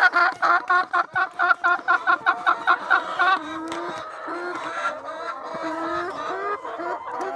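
A flock of laying hens clucking as their eggs are being collected. A hen gives a fast run of short, sharp clucks, about five a second, for the first three seconds. Then softer, lower, drawn-out clucks carry on.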